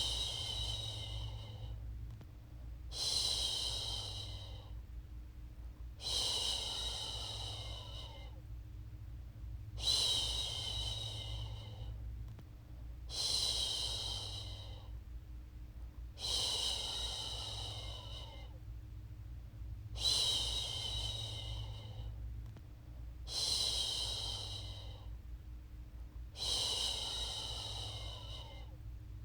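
A woman's voice shushing a baby, a long 'shhh' repeated about every three seconds, each one starting strong and trailing off. A faint steady low hum runs underneath.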